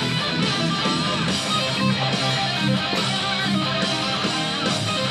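Distorted electric guitar playing a heavy metal riff, with low notes repeating in a steady rhythm.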